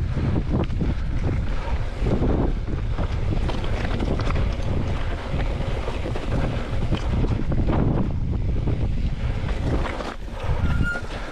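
Wind buffeting the microphone over a steady low rumble, with many small knocks and rattles from a mountain bike ridden over rough ground.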